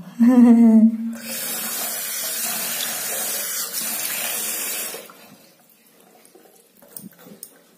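Water running from a tap into a ceramic basin, a steady hiss for about four seconds that stops abruptly, followed by a few faint clicks.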